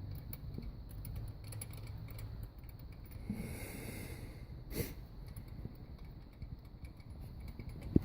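BMW M140i's turbocharged straight-six running, with a light ticking rattle from a loose wastegate linkage over the low engine sound, and a short sharper knock about five seconds in.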